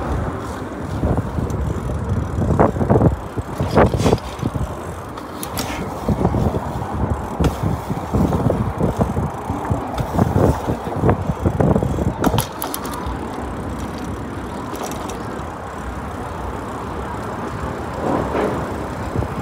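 A mountain bike being ridden over city pavement: tyres rumbling steadily, with irregular knocks and rattles from bumps that ease off in the last third.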